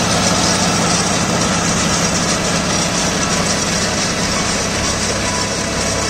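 Farm tractor's diesel engine running steadily as the tractor drives past and away, the sound easing off slightly near the end.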